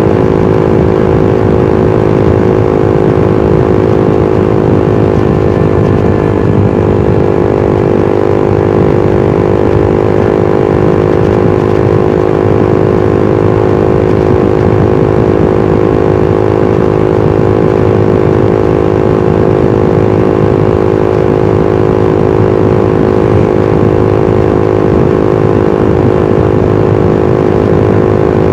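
Suzuki GSX-R150's single-cylinder four-stroke engine and exhaust running at a steady cruise, its pitch holding constant with no revving up or down.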